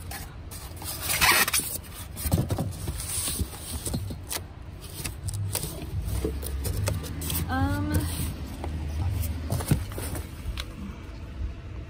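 Handling noise as discarded parts and their packaging are moved about: rustling and scraping with scattered knocks and clicks.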